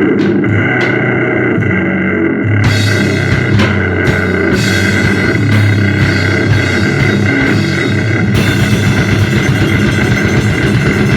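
Instrumental powerviolence noise without vocals. A heavily distorted drone from an effects pedal holds alone at first. A few seconds in, the drums come in with fast blasting and a cymbal wash under it.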